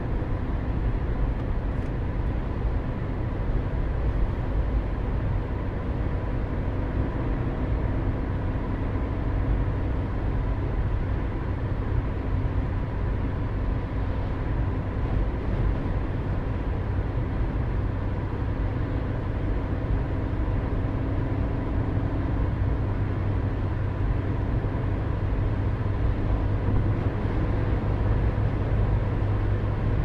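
A car driving at highway speed, heard from inside the cabin: a steady low rumble of road and engine noise with a faint steady whine above it.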